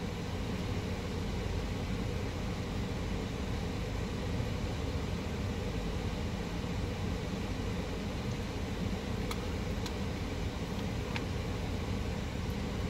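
Steady rumble of a car idling, heard from inside the cabin, with a few faint clicks about two-thirds of the way through.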